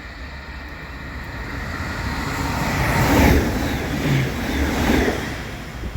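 A train passing at speed: a broad rushing noise swells to a peak about three seconds in, stays loud with a second peak about five seconds in, and fades near the end.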